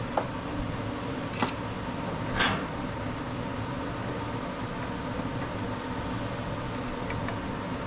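Steady fan-like hum, with small clicks and a brief scrape as a mower's drive-cable spring and cable are worked by hand: a sharp click about a second and a half in, and a short scrape a second later.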